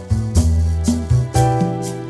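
Background music with a steady beat, bass and guitar.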